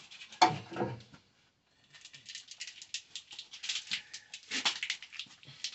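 Corrugated plastic wire loom being handled and cut: a run of light, rapid clicks and crackles starting about two seconds in.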